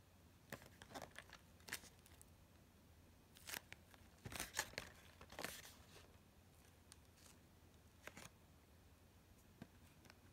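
Faint handling noise of a cardboard toy-train box being turned over in the hands: a few short scrapes and rustles of fingers sliding on the cardboard, busiest around the middle.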